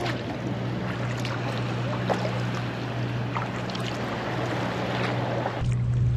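Sea kayak paddling over calm water: paddle strokes splashing and dripping, with water lapping at the hull, over a steady low hum. The hum gets louder and the splashing drops away near the end.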